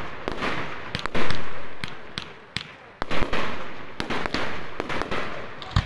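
Aerial fireworks display: shell bursts banging in quick succession, with rapid small cracks between them. The loudest bang comes about a second in, with more around three seconds and near the end.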